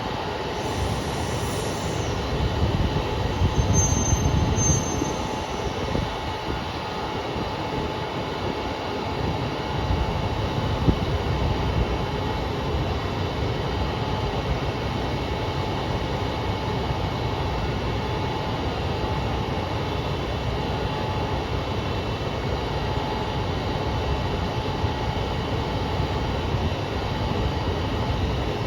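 KiHa 200 diesel railcar standing and running at idle, a steady mechanical rumble with a constant hum. The railcar KiHa 200-1551 is giving off an abnormal noise, a fault that soon took the unit out of service.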